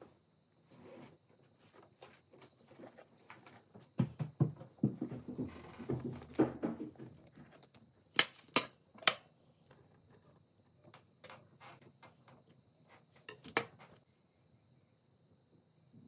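Kitchen handling noises: scattered light clicks and knocks of utensils and dishes, with a run of dull thumps about four seconds in and a few sharp clicks around eight to nine seconds.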